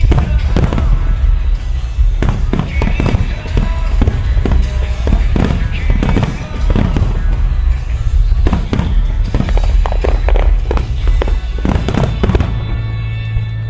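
A rapid barrage of fireworks shells bursting in quick succession over loud show music with a steady bass line; the bursts thin out near the end while the music carries on.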